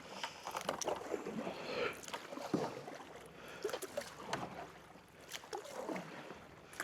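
A kayak being paddled: the paddle blades dip and splash in the water in uneven strokes, with scattered small clicks and knocks.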